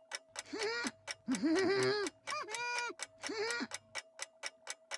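Cartoon clock ticking steadily, about four ticks a second, with short wordless cartoon-voice sounds over the ticks, rising and falling in pitch.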